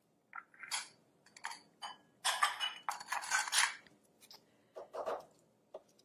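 Spatula scraping down the sides of a food processor's clear work bowl full of guacamole: a run of irregular scrapes and knocks, the longest and loudest about two seconds in.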